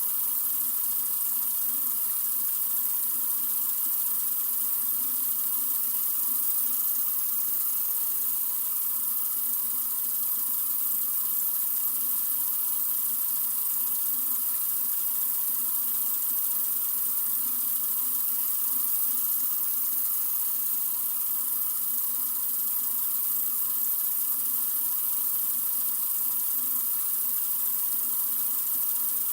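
Sink faucet running in a steady, continuous stream: an even hiss of flowing water that does not change.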